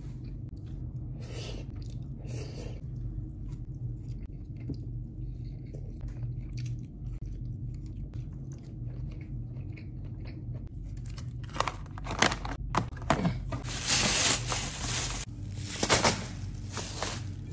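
Chewing food over a steady low hum. From about two-thirds of the way through, loud crackling and rustling of plastic as a plastic bag and rubbish are stuffed into a waste bin.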